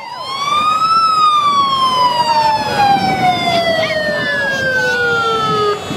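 A siren winds up to a peak about a second in, then slowly winds down in pitch over the next five seconds and cuts off just before the end.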